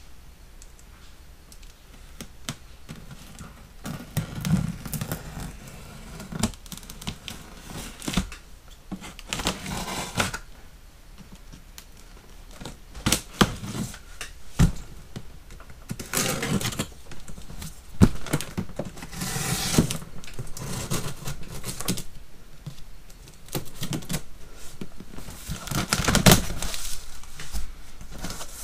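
Cardboard box being cut open: a knife slitting the packing tape in scraping strokes, among irregular clicks and knocks on the box. Near the end the cardboard flaps are pulled open with a rustling scrape.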